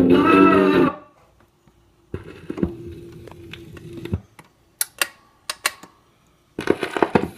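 A 1957 RCA 8-EY-4DJ 45 record player playing a vocal record cuts off about a second in. Then comes a brief steady hum with a few knocks, and near the end a run of sharp mechanical clicks and clunks.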